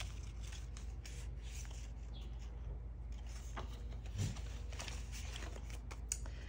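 Faint rustling and soft handling of paper banknotes and cash envelopes, with scattered light ticks over a low steady room hum.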